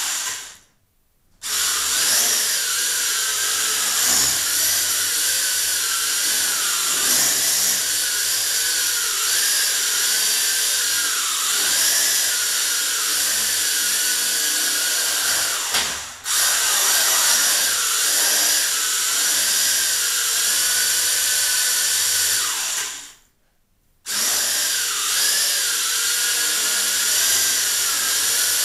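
WLtoy V333 quadcopter's four small brushed motors and propellers whining in flight, the pitch wavering up and down with throttle. The whine cuts out for about a second twice, just after the start and about four-fifths of the way through, then spins straight back up.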